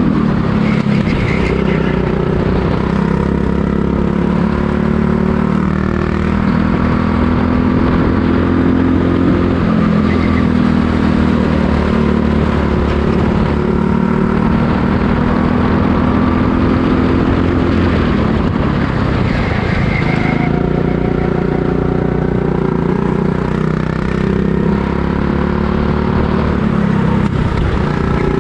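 Racing go-kart engine running hard and continuously, its pitch rising and falling repeatedly as it revs up and drops off.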